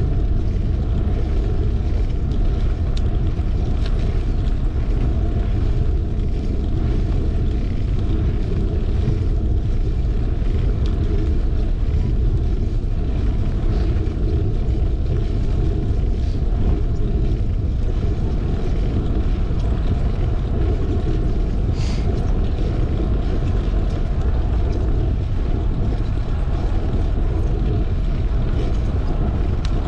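Steady low rumble of wind on an action camera's microphone mixed with a fixed-gear bicycle's tyres rolling over asphalt, with one short tick about three-quarters of the way through.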